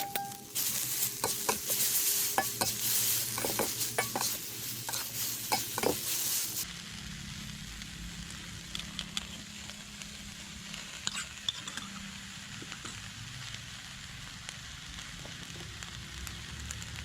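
Instant noodles sizzling as they are stir-fried in a hot pan, with a spatula scraping and knocking against the pan. The sizzling drops to a quieter, steadier frying sound about six and a half seconds in, with only an occasional scrape after that.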